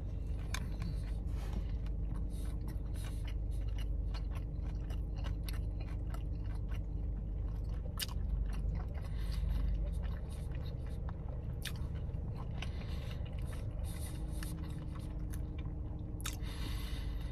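A man chewing a mouthful of a Whopper topped with candied bacon, bacon jam and crispy onions: wet chewing with many small crunches and clicks.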